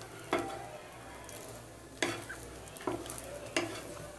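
Egg-dipped bread slice sizzling in ghee in a non-stick pan. A wooden spatula scrapes and knocks against the pan about four times as the slice is turned over.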